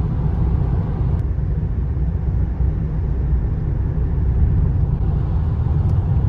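Car driving along the road: a steady low rumble of engine and road noise from a 2003 Lexus GS300.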